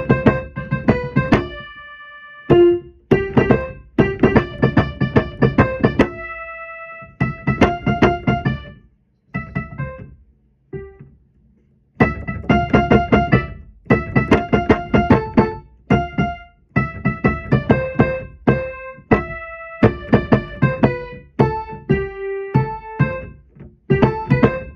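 Electric keyboard being played: phrases of struck notes and chords that die away, broken by short pauses, with a longer lull about ten seconds in.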